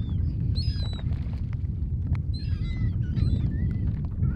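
A flock of gulls calling over the water, short squawking calls overlapping in clusters, over a steady low rumble.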